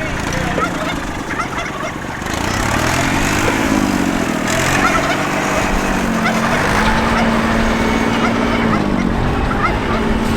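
A tractor's diesel engine picks up about two seconds in, its pitch rising and falling as it revs, then runs steadily. Farm animals call over it throughout.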